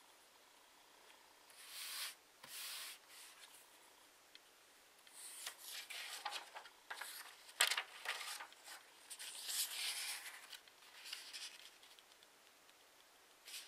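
A square sheet of paper being folded in half and creased by hand: paper rustling and fingers rubbing along the fold in several short bursts, loudest near the middle.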